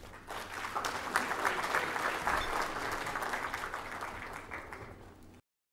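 Audience applauding: many people clapping at once, building quickly, then slowly thinning out before the sound cuts off abruptly near the end.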